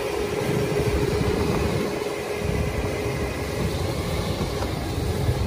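SHERP amphibious all-terrain vehicle running steadily, its engine droning as its big low-pressure tyres churn through water and broken ice. A steady tone runs under the drone for the first few seconds, then fades.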